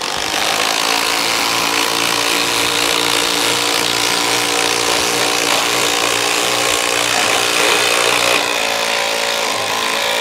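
Two 12-volt cordless impact drivers running at once, hammering fasteners into wood in a timed race. The sound changes a little after eight seconds in.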